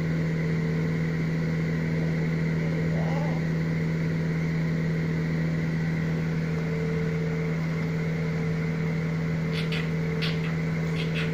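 A steady motor hum with an unchanging low pitch throughout. In the last couple of seconds, a few light knocks as small rubber toys are swept over onto the tiled floor.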